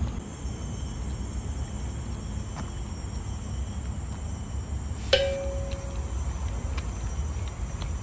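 Outdoor ambience: a steady low rumble with a thin, steady high insect drone. About five seconds in comes a single sharp metallic ping that rings for under a second.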